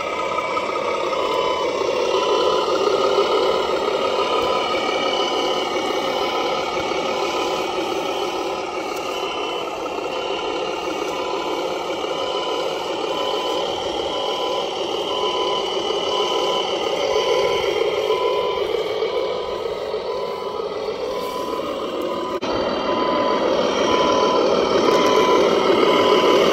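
RC truck sound unit playing a diesel truck engine through its small speaker. The engine note rises and falls with the throttle, and a short high beep repeats quickly and steadily, like a reversing warning.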